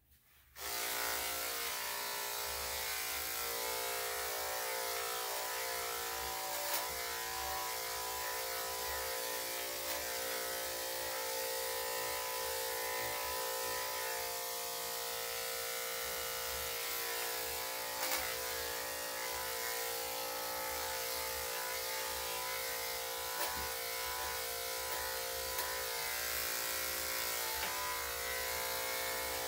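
Corded electric dog-grooming clippers switched on about half a second in and running with a steady hum as they trim the dog's face and chest. A few brief clicks sound over the hum.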